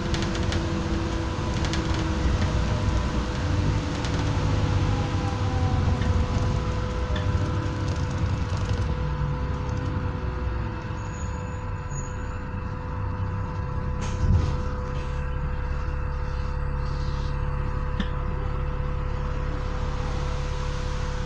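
Inside an Alexander Dennis Enviro400 double-decker bus: the bus drives with engine and road noise, then slows with a falling whine and comes to a stop. A sharp thump about 14 seconds in is the loudest moment, and the engine then idles at rest. A steady whine runs underneath throughout.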